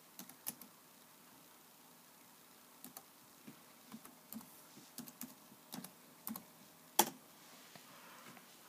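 Laptop keyboard keys being typed in short, irregular clusters of clicks, with a pause of about two seconds near the start and one louder key press about seven seconds in.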